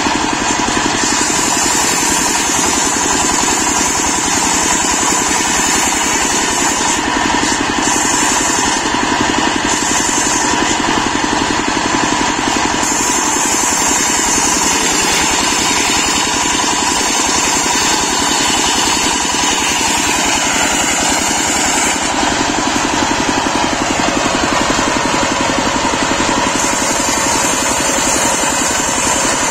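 A belt-driven circular saw on a mobile saw table ripping a teak log lengthwise, its large blade powered by a stationary diesel engine running steadily under load. The cutting noise changes a little as the log is pushed through.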